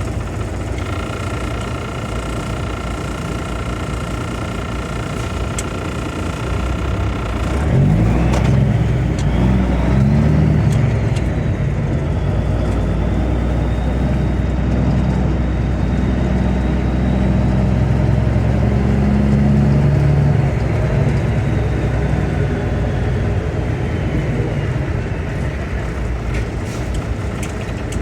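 Gleaner M3 combine running with a steady mechanical whine. About seven or eight seconds in, the whine stops and the engine grows louder and deeper, holding a steady hum.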